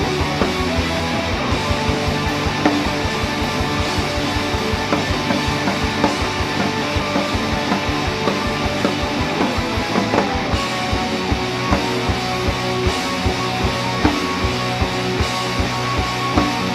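Rock trio playing live: electric guitar, bass guitar and drum kit, with a fast steady beat.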